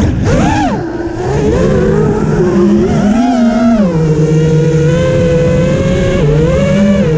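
A motor vehicle's engine running, its pitch rising and falling as it revs and settles, over a constant low rumble of wind on the microphone.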